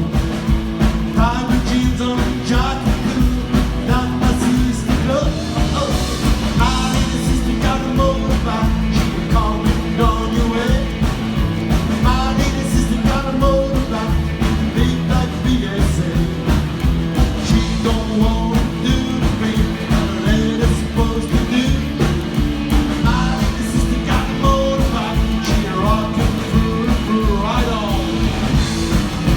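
A rock and roll band playing live: a singer over a steady drum beat and guitar.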